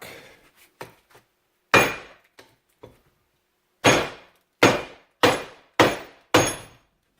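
Six hammer blows on a stuck part of an ATV's CV axle assembly, resting on a block, as it is tapped to drive it out: one blow, a pause, then five in a steady rhythm about half a second apart. The part is stuck fast and does not come free.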